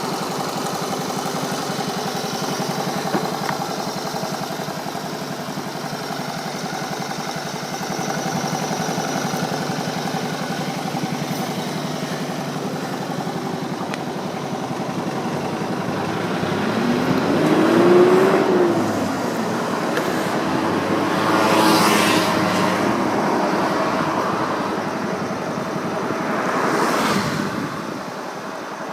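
A 1969 Honda Monkey's 49 cc four-stroke single-cylinder engine idling steadily, then revved up and back down about three times in the second half, the loudest rev a little past the middle.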